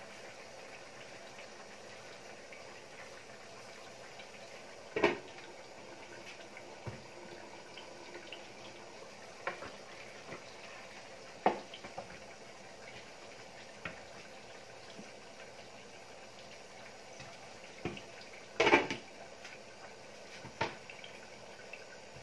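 A pan of pork adobo simmering on the stove with a faint steady bubbling. A handful of sharp clinks and clanks of a glass lid and a utensil against the skillet come through it, the loudest near the end.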